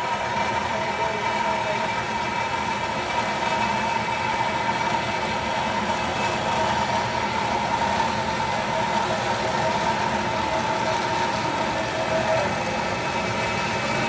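A machine running steadily, with a constant whine over a broad rumble.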